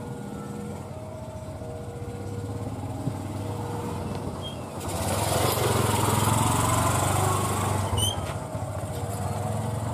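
Small motorcycle riding past close by: its engine grows louder over a few seconds, then eases as it rides away. A steady low engine hum runs underneath.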